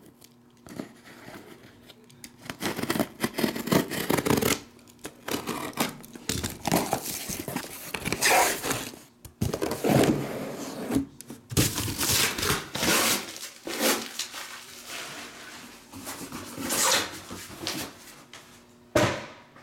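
Tape being slit and ripped off a sealed cardboard card case, with cardboard scraping as the case is opened and emptied: a run of irregular rips and scrapes with brief pauses between them.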